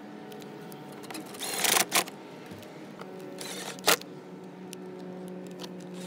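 Socket wrench on a long extension tightening the 7mm bolts of a truck door's armrest switch bezel, heard as a few short bursts of ratchet clicking, at about one and a half seconds and again near the four-second mark.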